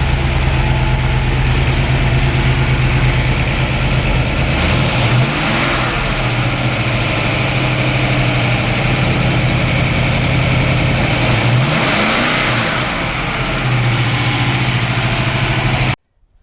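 1973 Plymouth Cuda's 340 small-block V8 idling, running through a large exhaust leak where the headers meet the rest of the exhaust. The revs rise briefly twice, about five seconds in and again near twelve seconds, then settle back to idle. It cuts off abruptly near the end.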